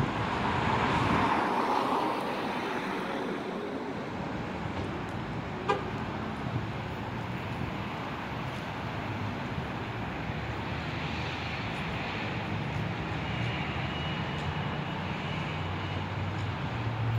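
Outdoor road traffic noise: a steady hum of passing vehicles, louder in the first couple of seconds, with a single sharp click about six seconds in.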